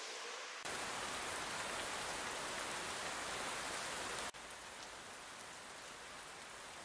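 Steady rain falling, an even hiss of drops with no other sound standing out. It grows louder about half a second in and drops back to a softer patter about four seconds in.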